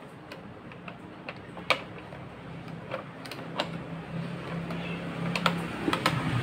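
Scattered sharp plastic clicks and taps as a hand works the hinged lid and inner parts of a plastic car armrest console, with one louder click a little under two seconds in. A low engine hum grows louder toward the end.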